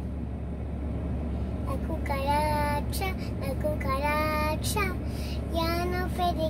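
A young girl singing three short, drawn-out phrases without clear words, over the steady low hum of the car cabin.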